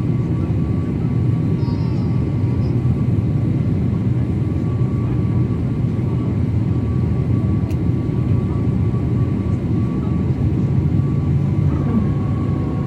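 Boeing 777 jet engines heard on approach: a steady low rumble with a thin steady whine above it.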